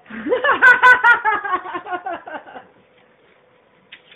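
A person laughing: a run of quick, high-pitched laughs that trails off after about two and a half seconds.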